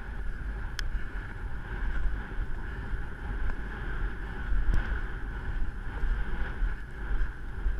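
Wind buffeting the microphone with a heavy, uneven low rumble, recorded on a galloping horse.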